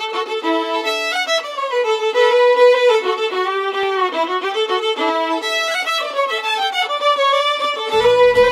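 Solo fiddle playing a lively French-Canadian traditional dance tune; lower accompaniment joins near the end.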